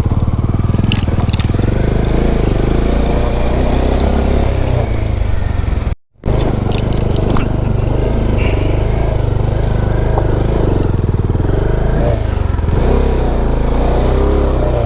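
Motorcycle engine running at low speed over a rough off-road track, with a few clicks and scrapes from the ground. The sound cuts out completely for a moment about six seconds in.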